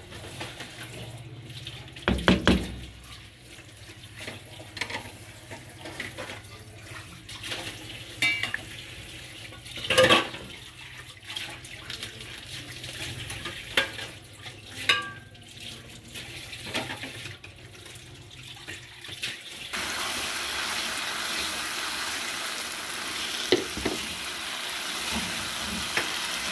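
Spatula stirring and scraping yogurt-marinated chicken in a nonstick pan, with scattered knocks against the pan. About twenty seconds in, a steady sizzle of frying takes over as the masala cooks in the oil.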